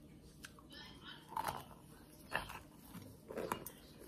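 Dry lumps of Argo cornstarch crumbling and squeaking between fingers and teeth: a few short crunches about a second apart.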